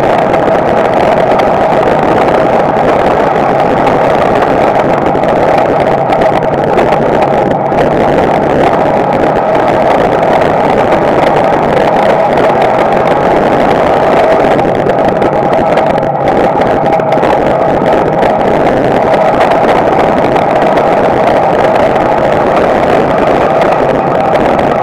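Street stock race car's small-block Chevy V8 running steadily at racing speed, loud, heard from inside the cockpit.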